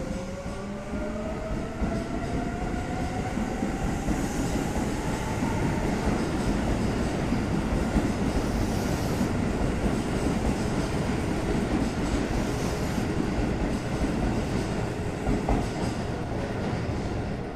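Keisei 3400-series electric train pulling out of a station: its traction motors whine, rising in pitch for the first six seconds or so as it accelerates. The whine is under a steady rumble and clatter of wheels on rails as the cars roll past.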